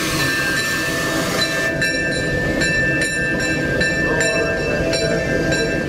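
Disneyland Railroad steam locomotive running, heard from inside its cab: a steady hiss and high whine with a run of regular knocks about three a second from about two seconds in.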